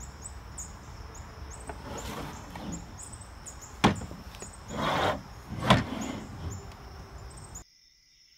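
Wooden stool knocking against a plastic folding table as it is handled and turned over: a sharp knock about four seconds in, a scraping rustle, then a second knock. Repeated high chirps and a steady high tone run behind, and everything cuts off abruptly near the end.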